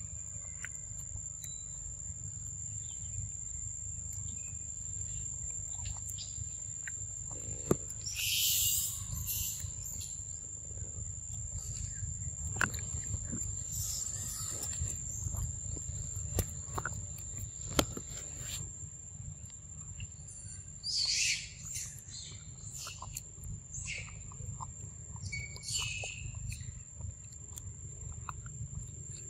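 A macaque eating soft, ripe fruit close to the microphone: scattered wet smacks and chewing clicks, with a few louder slurping bursts. Under it runs a steady high insect drone.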